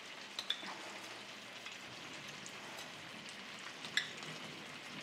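Chicken thighs frying in a pan, sizzling steadily. A few light clinks of a metal spoon on a glass bowl, the sharpest about four seconds in.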